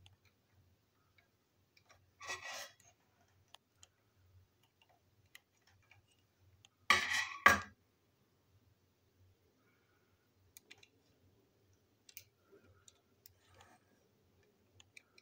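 Small plastic parts of a toy train engine clicking and clattering as they are handled on a tabletop, with a brief rattle about two seconds in and a louder double clack about seven seconds in.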